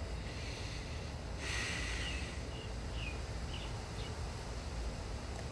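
Outdoor ambience: a steady low rumble with short, high chirps repeating every second or so, and a brief breathy hiss about a second and a half in.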